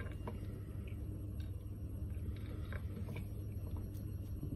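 Faint, scattered clicks of plastic Lego Technic pieces as the excavator model is handled and turned over in the hands, over a steady low background hum.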